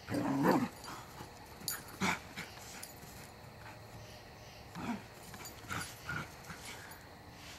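Small dog yelping loudly once at the start, then giving a few short whimpers and yips spaced out over the following seconds.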